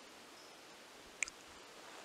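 Quiet background hiss with one sharp click a little over a second in, followed at once by a fainter second click.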